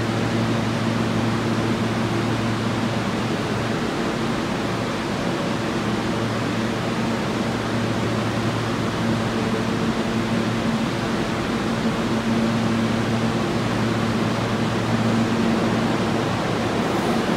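Steady rushing hum of an R160 subway train standing at the platform, its air-conditioning and auxiliary equipment running, with a low hum that fades and returns now and then.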